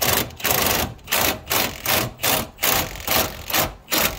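Impact gun hammering in short repeated pulses, about two to three a second, driving the screw of a scissor jack through a 19 mm socket to force the truck's upper control arm down.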